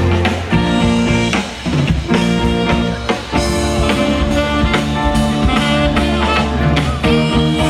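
Background music: a band track with guitar and a drum kit keeping a steady beat.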